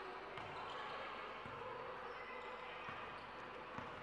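A basketball bouncing on the court a few times, uneven short thuds, over the steady background noise of an indoor gym.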